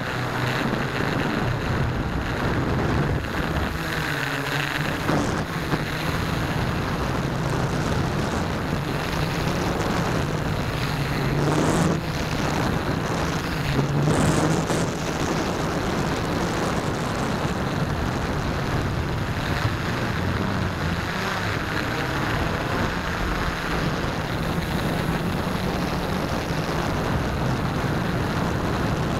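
Steady drone of a radio-controlled model airplane's motor and propeller, heard from a camera mounted on the plane, with small shifts in pitch. Wind rushes over the microphone throughout.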